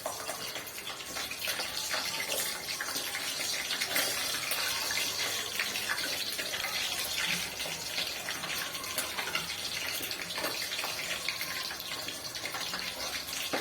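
Kitchen tap running, a steady rush of water with small splashes and crackles throughout.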